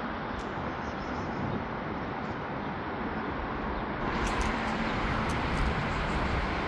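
Steady outdoor street noise, a continuous hum of the kind distant traffic makes, with no distinct events; a few faint ticks come in after about four seconds.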